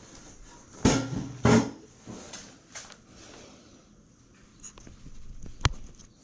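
Handling knocks and bumps: two loud knocks close together about a second in, a few softer ones after, and one sharp click near the end.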